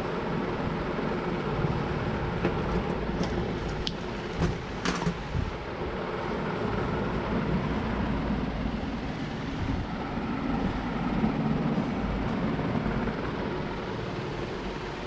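Steady rumble of a running vehicle engine, with a few sharp metallic clicks about three to five seconds in.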